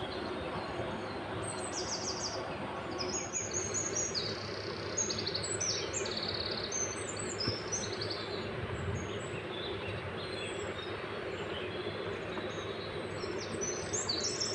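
Small birds chirping and trilling in quick, repeated bursts over a steady background hiss.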